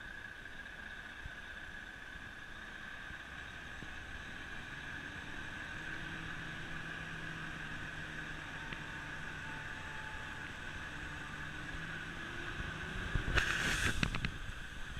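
Heavy lorry's diesel engine running as the low-loader rig pulls slowly past, its hum growing louder about halfway through. Just before the end comes a brief loud burst of hissing noise.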